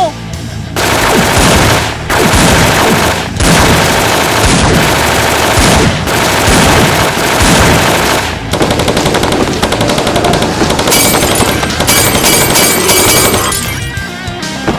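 Automatic gunfire sound effects: several long bursts of machine-gun fire broken by short pauses, then a faster, even rattle that dies down near the end.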